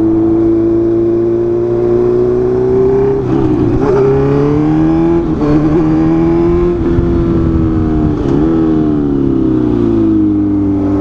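2017 Honda CB650F inline four-cylinder engine with an SC sport exhaust, running at high revs. Its pitch climbs slowly, then dips and recovers three times as the throttle and gears change.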